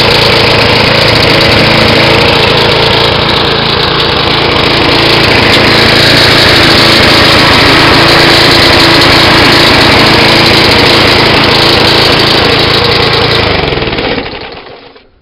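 Toro Timemaster lawn mower's Briggs & Stratton engine running steadily, then slowing and stopping near the end as its pitch drops away.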